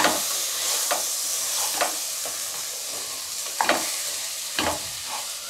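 Wooden spatula stirring and scraping raw broken rice through hot oil in a pressure cooker, with a steady sizzle of the oil underneath; the scrapes come about once a second. The rice is being lightly roasted in the oil for rice upma.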